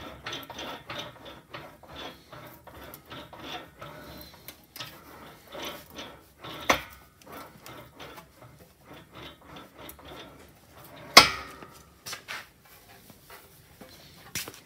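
Sheet-metal panel being rolled back and forth through an English wheel, stretching the metal to raise its curve: a steady rasping rub of the sheet between the wheels with small clicks, and sharp metallic clanks about seven and eleven seconds in, the one near eleven seconds the loudest.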